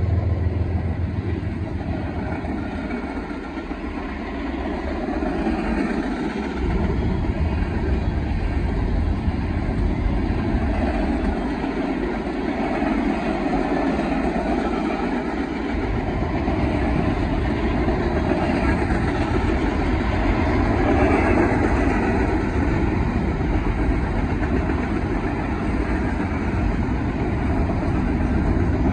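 Freight train cars rolling past at speed: a steady roar of steel wheels on rail with a low rumble underneath that drops away twice for a few seconds.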